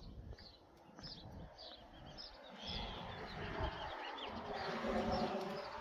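A small bird chirping over and over, about three short chirps a second, through the first half. A rushing noise grows louder in the second half.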